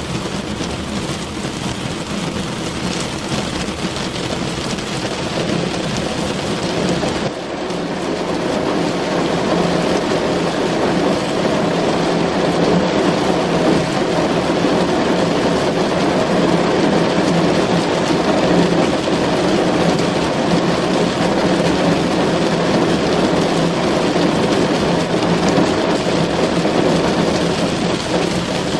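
Steady rain drumming on a car's roof and windows, heard from inside the cabin; after a brief lull about seven seconds in it comes down a little heavier.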